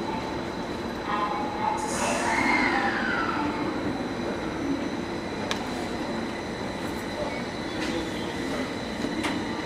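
Electric commuter train standing at a station platform, its onboard equipment giving a steady hum with a high steady tone. About two seconds in, a high whine slides down in pitch over a second or so.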